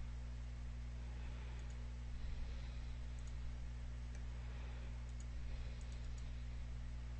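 Faint computer mouse clicks, a few scattered ones, over a steady low hum.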